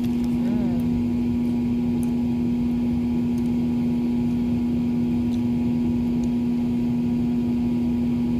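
A loud, steady low hum of constant pitch, with a brief murmur of a voice about half a second in and a few faint clicks.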